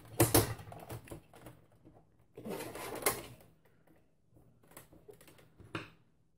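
Plastic back cover of an HP TouchSmart 23 all-in-one being pried off by hand: several sharp clicks and cracks as its snap clips let go, with a longer stretch of plastic scraping and rubbing about two and a half seconds in.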